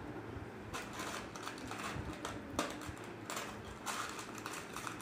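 Hair rustling and scratching under fingers close to the microphone as a rolled section of hair is twisted and tucked into place, in irregular soft bursts.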